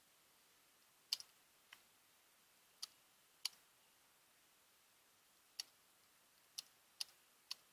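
Computer keyboard keystrokes: faint, sparse clicks at irregular intervals, about nine in all, over near silence.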